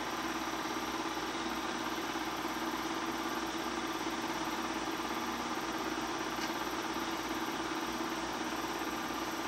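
Bell & Howell 253-A 8mm film projector running with a steady, even mechanical hum.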